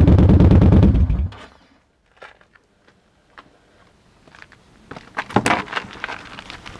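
Yamaha XVS1300CA Stryker's V-twin running with a loud, even pulse through Vance & Hines Twin Slash Staggered pipes, then shut off about a second in. A few faint clicks follow, then louder rustling and knocks near the end.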